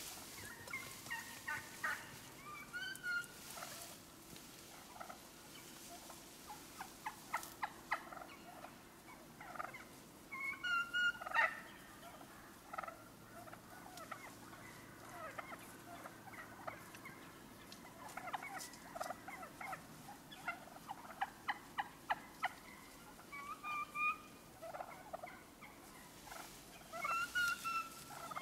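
Wild turkeys calling: irregular runs of short, pitched yelping and clucking notes, scattered all through, some in quick series.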